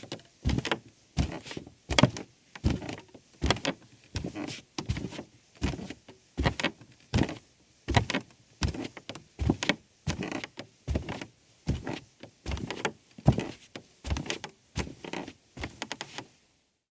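Footsteps on wooden stairs: a steady walking pace of hollow wooden thuds, about one and a half steps a second, stopping just before the end.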